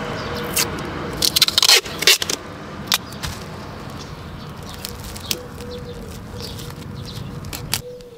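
Electrical tape being pulled off the roll and wrapped around cable joints: crackling, tearing rips, with a cluster of loud sharp rips in the first couple of seconds and lighter crackle after.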